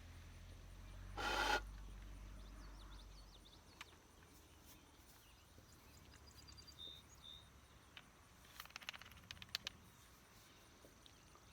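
Quiet outdoor ambience with a low rumble that fades out over the first few seconds. About a second in there is one short rushing puff, a few faint high chirps come in the middle, and a quick run of small clicks follows later on.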